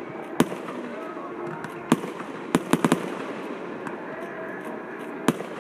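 Aerial firework shells bursting in sharp bangs: one about half a second in, another near two seconds, a quick run of four just after, and a last one near the end.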